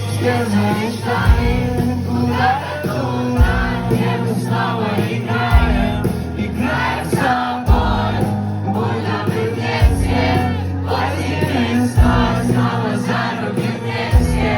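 Live rock band playing a song, with a heavy bass-and-drum hit about every two seconds under sung vocals, and the concert crowd singing along.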